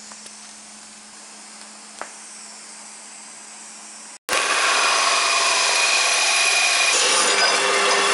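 Welding arc on steel tube hissing steadily, with a thin high-pitched whine from a faulty gas pressure regulator. About four seconds in it cuts off abruptly, and a metal-cutting bandsaw starts, much louder, cutting through steel square tube.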